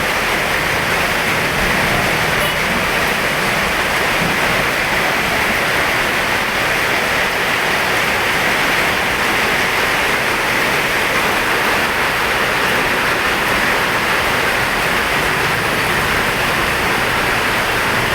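Heavy rain falling in a steady, even hiss that does not change.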